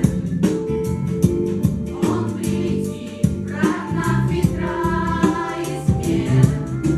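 A choir singing a song with instrumental accompaniment and a steady beat.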